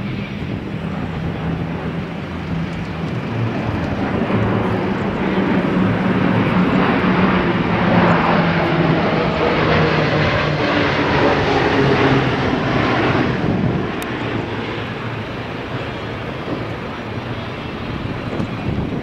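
Airplane engine noise that swells to its loudest about halfway through and then fades, with a steady low hum under it.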